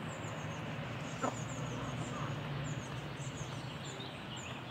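Hens feeding on yogurt, giving one short, soft cluck about a second in, over faint, repeated high chirps.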